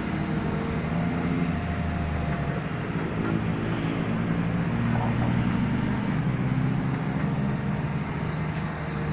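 Caterpillar 320BL long-arm excavator's diesel engine running steadily.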